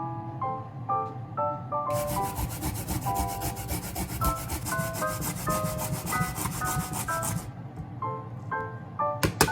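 Daikon radish being grated on a grater, a fast, even run of scraping strokes that starts about two seconds in and lasts about five seconds, with a few more strokes near the end. Light background music plays under it.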